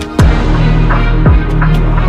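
Electronic background music: deep bass kicks that glide sharply down in pitch over a sustained low bass, with light hi-hat ticks on top.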